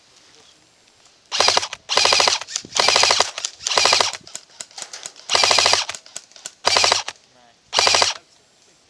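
Airsoft rifle firing seven short full-auto bursts close by, each a rapid rattle of shots lasting under a second, starting about a second in and ending near the end.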